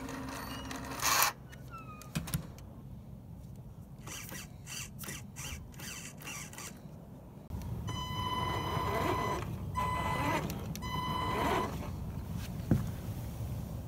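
Electric RC fire truck: the steering servo whirs in a quick series of short bursts as the front wheels are turned back and forth. From about halfway in, the electric drive motor and gearing whine steadily in three bursts of throttle.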